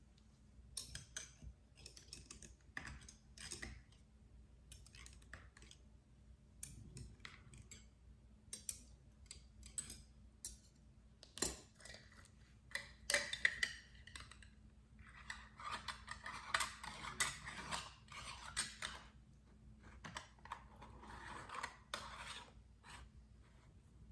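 Kitchen handling sounds as jars of refrigerator dill pickles are filled: scattered clicks, taps and clinks of glass jars and utensils, with a few longer hissing stretches of one to three seconds.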